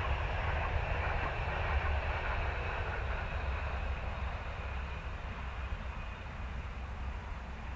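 Electric ducted fan of a Freewing Venom model jet (90 mm, 12 blades) rushing in flight, slowly fading as it draws away, over a steady low rumble.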